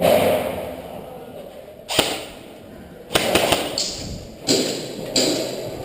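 Airsoft guns firing: sharp cracks and thuds, a single one about two seconds in, a quick cluster about a second later, and more near the end.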